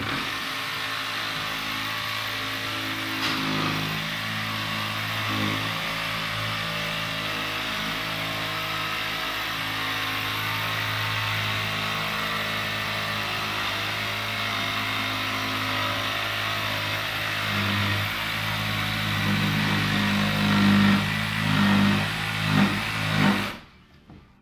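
Cordless power cutting tool running continuously as it cuts a line through a plasterboard radiant ceiling panel: a steady motor whine mixed with rough cutting noise, its pitch shifting as it takes load. It gets louder and uneven near the end, then stops abruptly.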